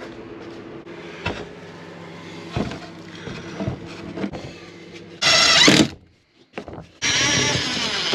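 A few faint knocks, then a cordless drill-driver runs in two short bursts, about five seconds in and again near the end, driving screws into wood; its pitch climbs and drops within each run.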